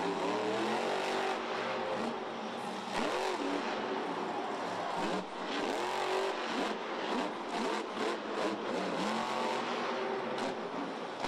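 Monster truck's supercharged V8 engine revving hard, its pitch rising and falling in repeated surges as the truck is driven and wheelied across the dirt.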